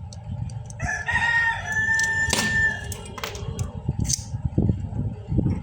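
A rooster crowing once, one call of about two seconds, over a low rumble. Several sharp clicks and knocks follow in the second half.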